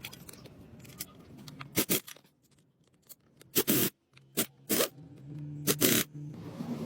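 Short scraping strokes, about six spread unevenly with pauses between, as of parts being scraped or scrubbed while cleaning a motorcycle engine.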